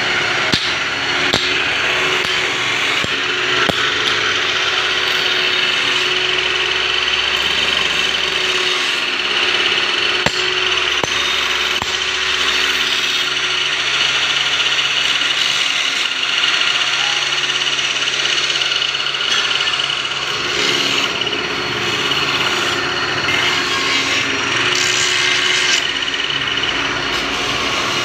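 Steady metal-workshop noise: a power tool running with a high whine, over low machine hum, with a few sharp clicks.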